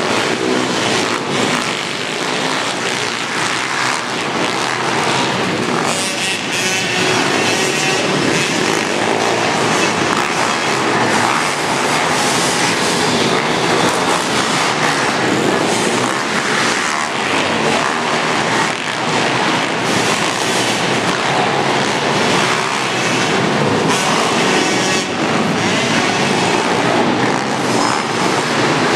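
Several pit bikes racing together, their small engines running hard as a continuous, dense engine noise.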